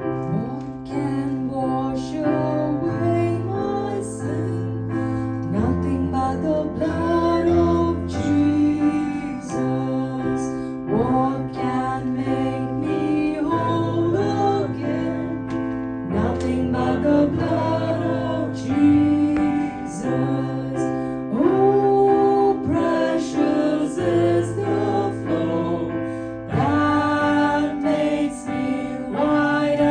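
Worship song sung by a church singing team with keyboard accompaniment: singing over held chords.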